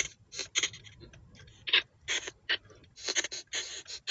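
L&B white noise translator spirit box putting out choppy, irregular bursts of static hiss, each a fraction of a second long with short gaps between.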